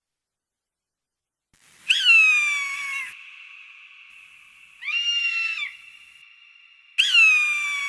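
Falcon calling: three harsh, screeching calls starting about two seconds in, the first and last about a second long and falling slightly in pitch, the middle one shorter.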